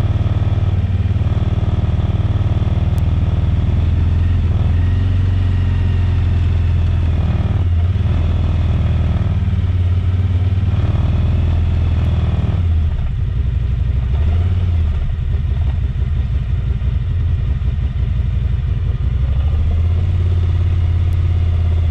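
A vehicle's engine running steadily while driving, heard loud from on board. The engine note eases off and shifts about two-thirds of the way through.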